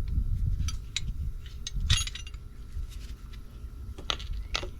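Metal tools and parts being handled: a few sharp clinks and taps, the loudest about two seconds in and two more near the end, over low handling rumble.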